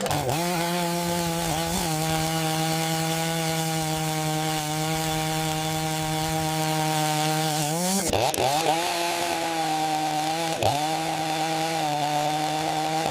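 Chainsaw running steadily at high speed, its pitch dipping sharply and recovering a few times, most clearly about eight seconds in and again two to three seconds later.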